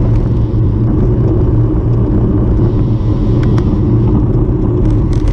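Steady low rumbling noise, with a few faint clicks about three and a half seconds in and again near the end.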